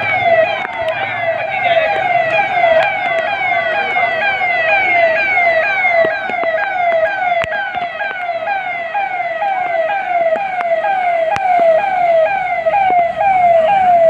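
Electronic siren on a Mahindra Bolero, sounding a fast yelp: short falling sweeps in pitch, repeated about two to three times a second without a break.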